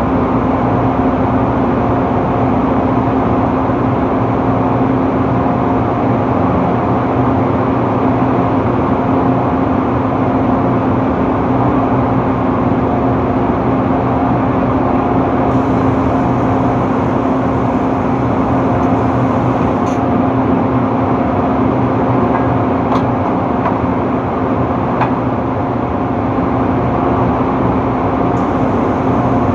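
Steady drone of drilling rig machinery on the rig floor: a continuous hum at one constant pitch, with a couple of faint metallic clicks in the second half.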